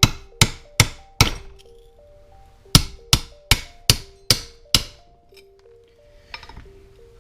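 A hammer striking metal parts of a car differential: two runs of sharp ringing blows, four and then six after a pause of about a second and a half, about two and a half blows a second.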